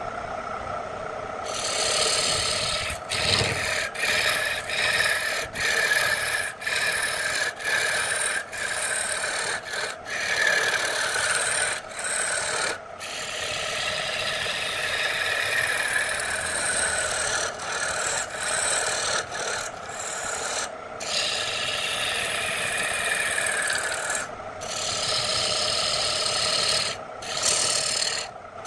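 A turning tool cutting a redwood blank spinning on a wood lathe: a rough scraping hiss, broken by short gaps as the tool is lifted off and set back on, over the steady hum of the lathe motor. The cutting starts about a second and a half in.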